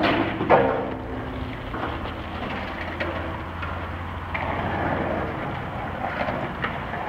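Skate wheels rolling over pavement: a steady rumble with scattered clicks, and a sharp knock about half a second in.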